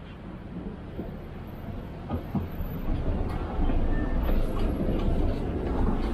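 Articulated tram running past close by on a curved track. Its wheels rumble on the rails with a few clicks, and the sound grows louder as the cars draw level about three seconds in.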